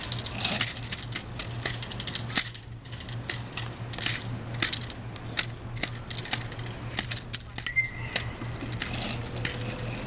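Irregular sharp clicks and light rattling over a steady low hum.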